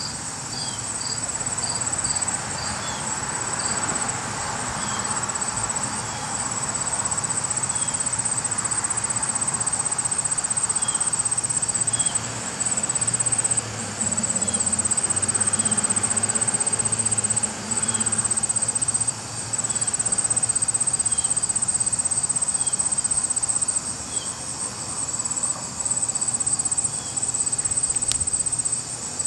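Insects trilling in a steady, high, even drone, with short chirps from a second insect repeating about once a second.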